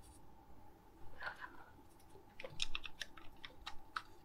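Small clicks and taps from the hard parts of a sixth-scale die-cast and plastic action figure as its removable chest plate is fitted back on by hand: a few about a second in, then a quicker run of clicks in the second half.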